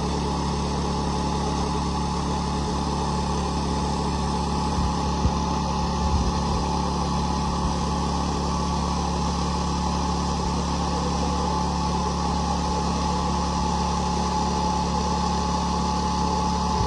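Portable band sawmill's small gasoline engine running steadily at constant speed while the band blade cuts through a cedar log, with a couple of light knocks about five and six seconds in.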